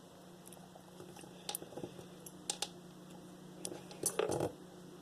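Scattered small metallic clicks and taps of a Master Lock 410 padlock's pins, springs and core being handled as the lock is taken apart, with a quick cluster of clicks about four seconds in, over a faint steady hum.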